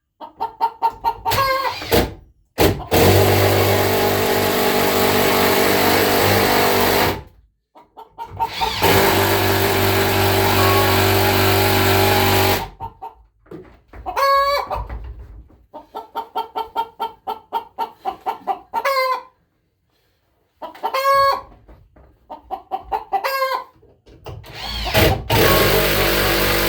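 Chickens clucking and cackling in quick runs of calls, broken by a few stretches of several seconds of a steady whirring sound that starts and stops abruptly.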